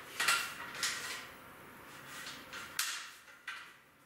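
A few short clicks, knocks and sliding scrapes as a cabinet-jack prop on a telescoping extension pole is pulled down, adjusted and set back up against the wall.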